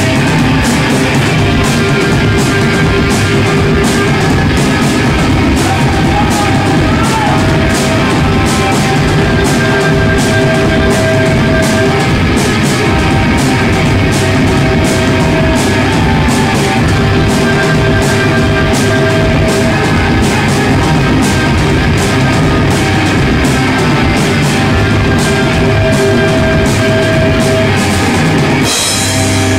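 Stoner rock band playing live: electric guitars and bass over drums with steady, even cymbal strikes. Near the end the drums drop out and the low guitar and bass notes hold on.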